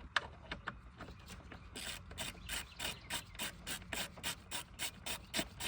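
Hand ratchet clicking as the ignition coil pack's mounting screws are run down snug: a few scattered clicks at first, then a quick steady rhythm of about four clicks a second from about two seconds in.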